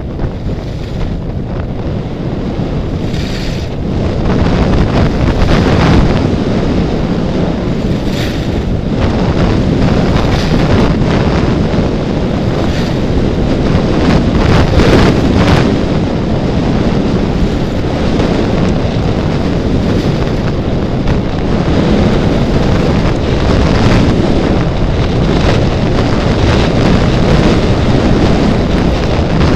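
Wind rushing over the microphone of a camera carried by a skier moving downhill: a loud, steady buffeting rumble, with brief louder rasps now and then.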